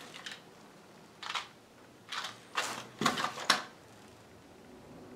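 Plastic packaging crinkling and rustling as it is handled, in a few short bursts with the loudest cluster about three seconds in.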